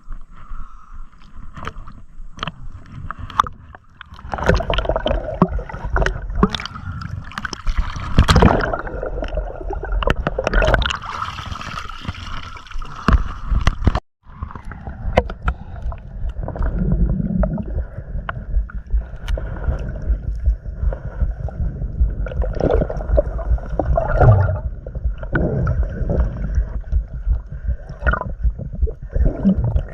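Water sloshing and gurgling close to the microphone, with a dense low rumble and many scattered knocks, as a person moves through the water; a faint steady high tone runs underneath, and the sound cuts out for an instant about 14 seconds in.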